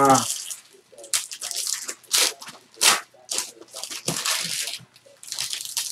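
Packaging of sports-card boxes being torn and crinkled open, in a run of short, irregular bursts.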